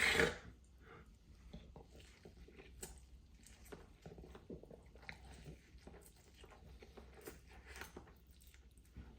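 A person chewing a mouthful of Buldak hot and spicy noodles, close to the microphone, with many small wet clicks and smacks. There is a short loud rush of noise at the very start.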